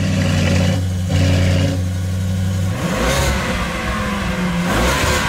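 Car engine running just after being started. It holds a steady idle, then changes tone about three seconds in with a couple of short revs.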